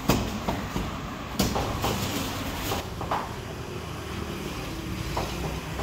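Meat cleaver chopping roast meat on a thick wooden chopping block: sharp knocks about every half second for three seconds, then one more near the end, over a steady low hum.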